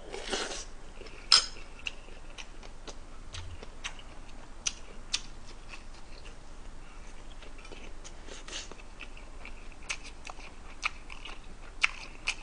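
Close-up eating sounds: a short slurp of stew broth from a spoon at the start, a sharp click about a second and a half in, then chewing and mouth smacks with many small scattered clicks.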